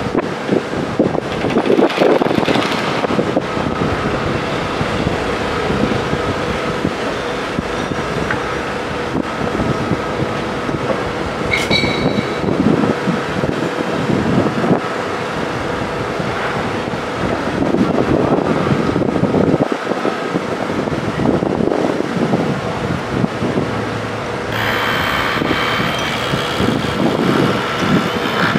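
Outdoor construction-site noise: wind rumbling on the microphone over a steady machine hum. A brief high chirp sounds about twelve seconds in, and a high hiss joins near the end.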